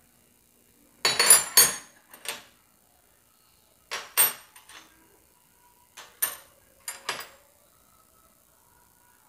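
Steel double-ended spanners clinking and clattering against each other as they are picked up and handled. There are several short metal clinks with a ringing tone, the loudest about a second in, then smaller ones every second or two.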